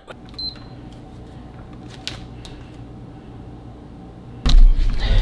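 Quiet steady room hum with a few faint clicks, then about four and a half seconds in, loud low thumping as bare feet step and shift on a glass bathroom scale.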